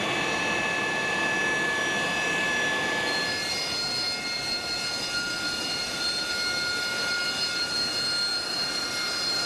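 McDonnell Douglas AV-8B Harrier II's Rolls-Royce Pegasus turbofan running on the ground: a steady jet whine of several high tones over a rush of noise. The tones shift abruptly about three and a half seconds in.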